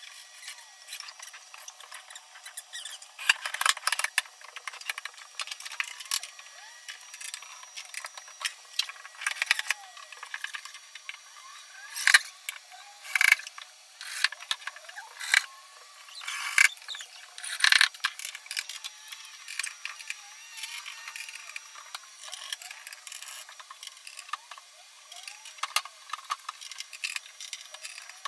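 Furniture assembly noises: a cordless drill driving screws into a wardrobe, with a ratcheting, clattering rattle, squeaks and several sharp knocks of panels and hardware, most of them in the middle.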